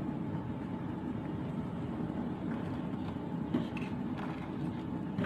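Steady rushing of a gas stove burner under a stainless-steel saucepan, with a few faint scrapes of a utensil stirring the soup in the pot.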